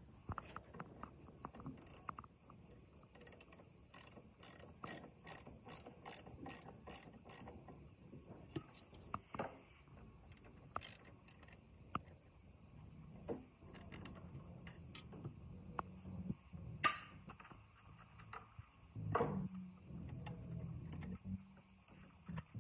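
Hand tools working on the metal parts of an old generator. A regular run of sharp clicks, like a ratchet wrench being worked, is followed by scattered clicks and knocks, with one sharp louder click about 17 seconds in.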